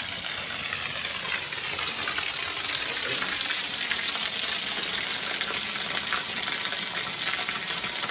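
Waterfall pouring and splashing close by: a steady, unbroken hiss of falling water.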